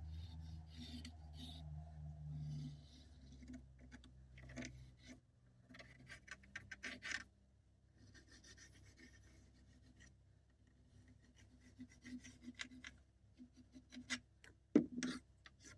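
Rubbing and scraping noises with scattered sharp clicks and knocks, as of objects being handled. A low hum fades out over the first few seconds, and the loudest knock comes near the end.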